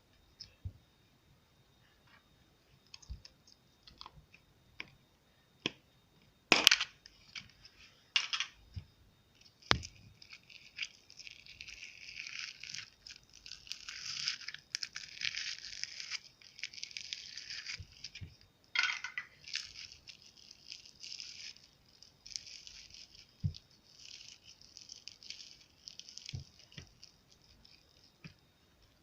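Slime being squished, stretched and folded by hand, with scattered sticky clicks and pops and a sharp pop about a quarter of the way in. Then a long stretch of dense wet crackling as air pockets in the slime burst.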